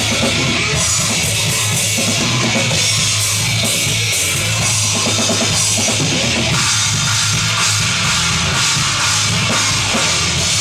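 Drum kit played in a driving rock beat, with cymbals crashing and washing over a steady low bass underneath.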